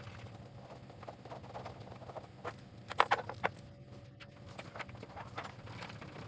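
Light plastic clicks and taps as a handpiece's bayonet connector is lined up and plugged into its socket on the machine, with a quick cluster of sharper clicks about three seconds in.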